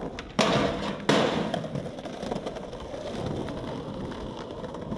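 Skateboard trick: two sharp cracks of the board less than a second apart, about half a second in, then the wheels rolling steadily on concrete paving.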